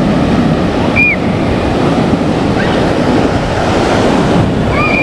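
Loud surf washing up the beach, with wind buffeting the microphone. A short high chirp comes about a second in.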